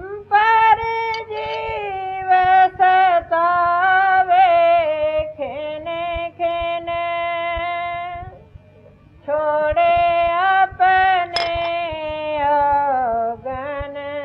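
A single voice singing a devotional verse in long, drawn-out notes, pausing briefly a little past the middle before going on.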